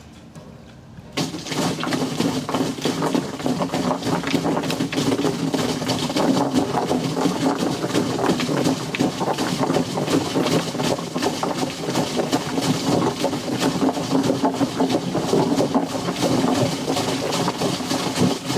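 Water gushing into a glass tank, churning and splashing inside it, starting abruptly about a second in.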